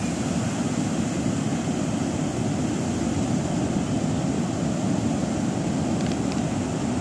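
Ocean surf breaking on a stony beach: a steady low rumble with no separate wave crashes standing out.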